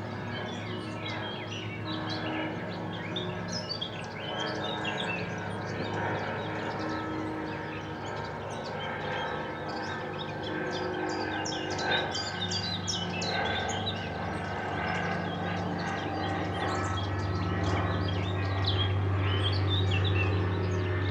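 Distant church bells ringing, their low, steady tones swelling and fading in a slow repeating pattern and growing louder near the end. Many small birds chirp over them, busiest midway, against a background of city noise.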